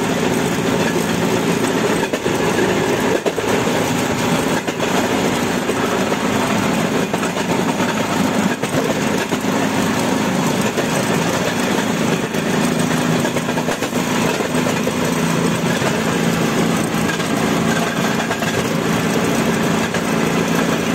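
Railway motor trolley running along the track: a steady engine hum under the loud, continuous rumble of steel wheels on the rails, with sharp clacks now and then as the wheels cross rail joints and points.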